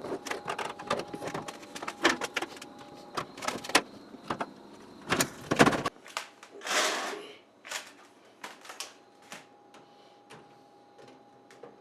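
Steel tool-chest drawers being worked on their metal slides: a run of sharp metallic clicks, knocks and rattles, with a longer sliding scrape about seven seconds in. The drawers run stiffly after the chest was bent in a move and then straightened.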